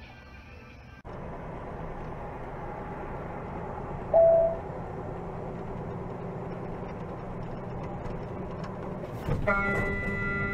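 Steady road and engine noise from a semi-truck dashcam at highway speed, with one short loud beep about four seconds in. Near the end a steady hum with several held tones comes in.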